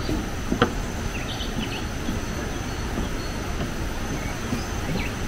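Tropical forest ambience: a steady low rumbling hiss under a continuous high insect drone, with a few short bird chirps. One sharp knock about half a second in.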